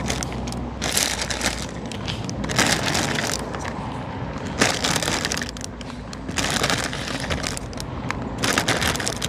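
Plastic cracker packet crinkling in irregular bursts as crackers are taken out of it by hand.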